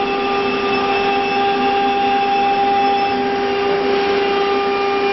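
CNC router running with a steady whine, two strong notes over a constant hiss, unchanging in pitch.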